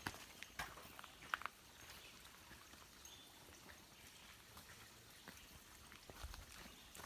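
A few faint footsteps on a dirt trail in the first second and a half, then near silence.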